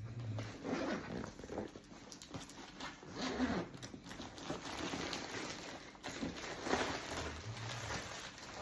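Rustling, zipper and fabric-handling sounds from a nylon Fjällräven Kånken backpack being turned over and inspected, with a person snoring low in the background.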